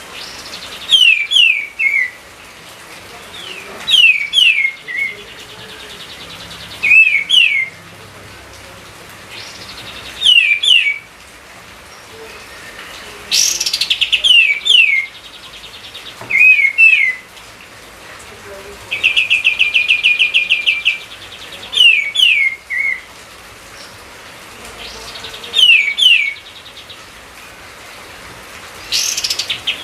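A songbird singing short phrases of two or three quick down-slurred whistles, repeated about every three seconds, with a fast rattling trill twice in the middle. A faint steady hiss sits underneath.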